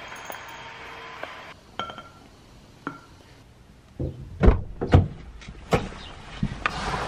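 A person climbing into a car's driver seat: a run of heavy thumps and knocks from the door and seat, starting about four seconds in. Before that there is only a faint steady hiss with a few light clicks.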